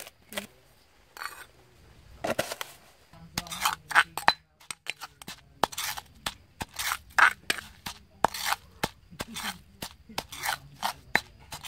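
A stone pestle pounding garlic, chili and salt into a paste in a stone mortar, with a metal spoon clinking and scraping against the stone. The strikes are sharp and sparse at first, then come about two a second from about three seconds in.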